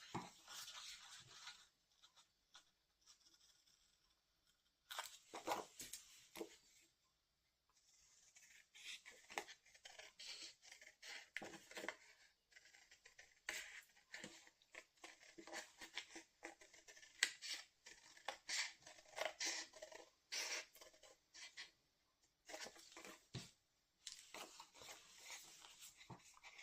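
Scissors snipping through card, faint runs of quick crisp cuts broken by short pauses.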